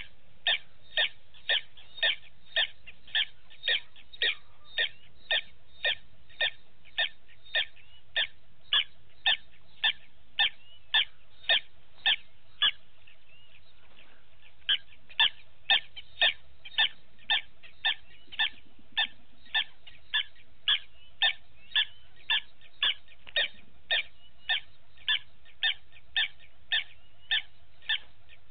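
An animal call: one short high note repeated steadily about twice a second, breaking off for a second or so about halfway through, then resuming at the same pace.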